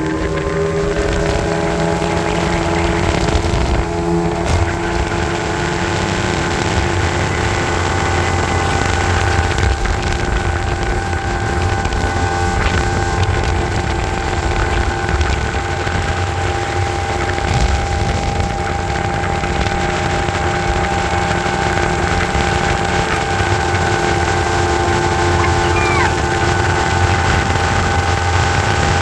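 Speedboat's outboard motor running steadily at planing speed while towing a water skier, over the rush of water along the hull and wind. The engine note holds one even pitch throughout.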